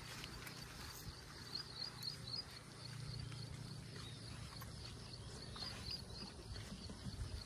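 Quiet rural outdoor ambience: a faint high-pitched chirping that keeps repeating several times a second, over a low steady rumble.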